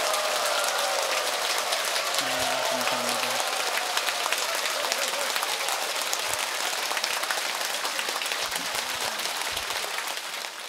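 A large indoor audience applauding: dense, steady clapping from a packed hall that tapers away near the end.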